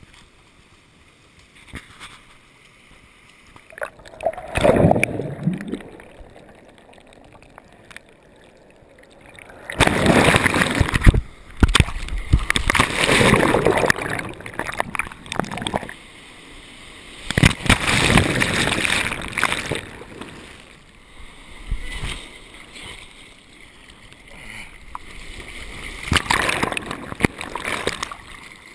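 Breaking surf and whitewater splashing and rushing over a camera held at water level, which dips under at times. It comes in four loud surges of a few seconds each, with a quieter wash of water between.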